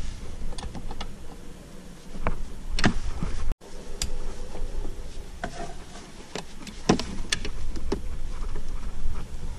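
Scattered metal clinks and knocks of hand tools and sockets being handled on the rear strut mounting bolts, over a low rumble of handling noise, with a brief full dropout a little over three seconds in.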